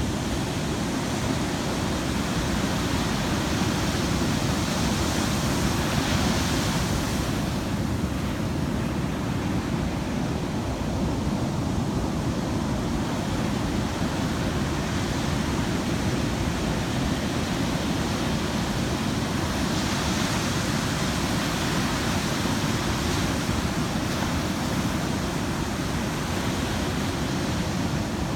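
Heavy ocean surf breaking, a continuous rush of whitewater that swells a little about six seconds in and again about twenty seconds in.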